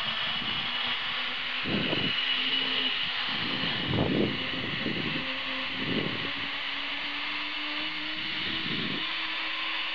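Zip-line trolley pulleys rolling along the steel cable: a steady whirring hiss with a faint hum beneath it, and a few short gusts of wind on the microphone.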